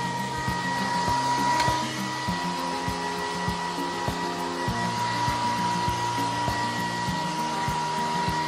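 Handheld hair dryer running steadily, a constant high whine over the rush of blown air, as it dries a wet monkey's fur.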